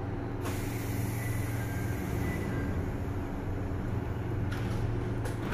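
Chichibu Railway 5000-series electric train (ex-Toei Mita Line stock) standing at the platform, its onboard equipment humming steadily, with brief hisses of air near the end.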